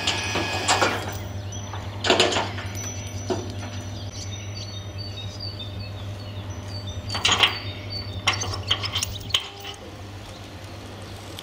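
Metal clanks and rattles from a jib crane's grab and chains knocking against a steel skip during debris-clearing work at a weir, several sharp strikes a second or more apart, over a steady low machinery hum.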